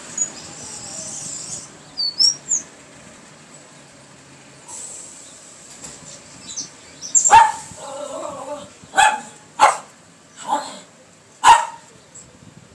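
A dog barking, five sharp barks spread over the second half, the loudest sound here. About two seconds in, a few short high whistled notes from a caged rufous-collared sparrow (chingolo).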